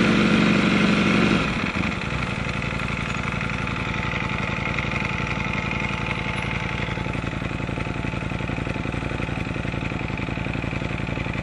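2018 Ducati Panigale V4 Speciale's V4 engine running loudly for the first second and a half, then dropping back to a steady, evenly pulsing idle.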